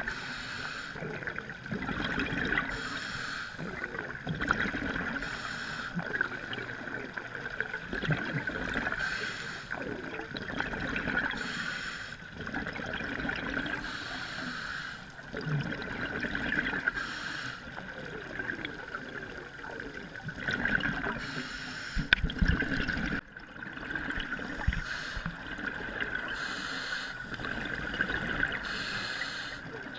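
Scuba diver breathing through a regulator underwater: a burst of bubbling exhaled air every few seconds, over a steady high hum.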